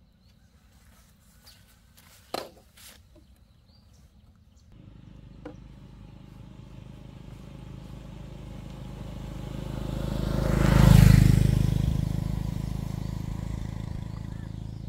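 A sharp click, then an engine comes in about five seconds in, running steadily and growing louder to a peak a little after ten seconds before easing back slightly.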